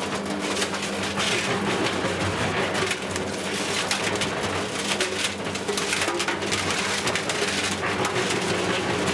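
Electric cement mixer running: a steady motor hum under a loud, continuous rattle of debris tumbling in the turning drum, starting abruptly.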